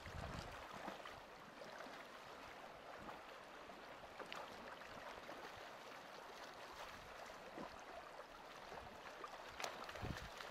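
Steady rush of river water flowing along a cobble bank, with a brief splash near the end as a fish thrashes in the shallows.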